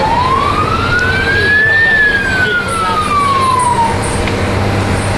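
A siren sounding one slow rise and fall: it climbs in pitch for about two seconds, then falls away over the next two, over the steady road and engine noise of a moving school bus.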